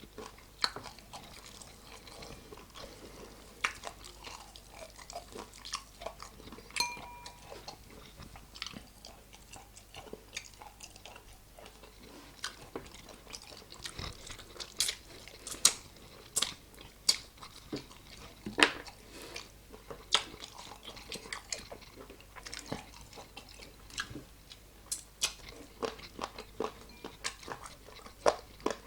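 Close-up eating of chicken wings: irregular crunchy bites and wet chewing, with sharp crackles every second or so.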